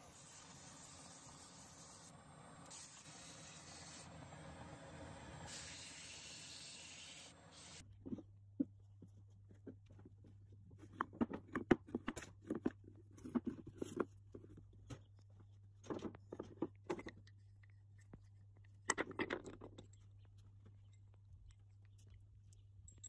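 Sandpaper hissing against a wooden tool handle spinning on a wood lathe. After a cut at about eight seconds, wooden and metal parts are picked up and handled on a workbench: scattered knocks and clacks over a steady low hum.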